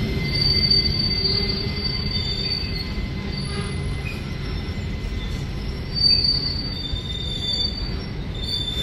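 Indian Railways freight train of covered boxcars rolling past close by: a steady low rumble of wheels on rail with intermittent high-pitched wheel squeals, the loudest about six seconds in.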